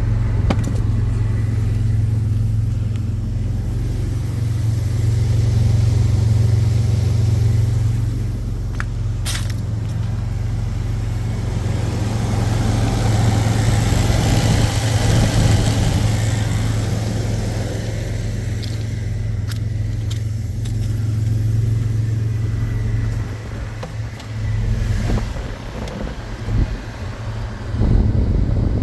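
2003 Jeep Liberty's 3.7-litre V6 running with a steady low drone, the broader vehicle noise swelling and easing off around the middle.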